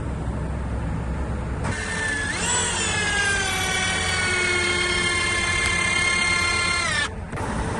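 A low engine rumble, then a power tool's motor kicks in with a high whine that rises quickly and then slowly drops in pitch as it works under load, and stops abruptly. The low rumble returns just after.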